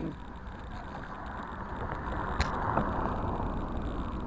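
Bicycle riding noise: tyres rolling on the road with wind on the microphone, a rushing noise that swells in the middle, with a single sharp click about two and a half seconds in.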